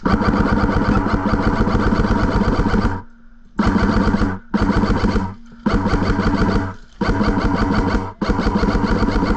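Airsoft electric rifle (AEG) firing on full auto, close by: one long burst of about three seconds, then five shorter bursts of about a second each, each a rapid even rattle of shots over the gearbox motor's whine.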